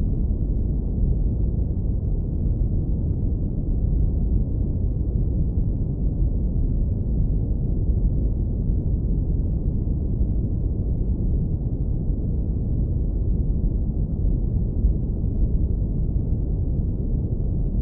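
Brown noise filtered down to the lowest frequencies: a steady, warm, deep rumble with no highs.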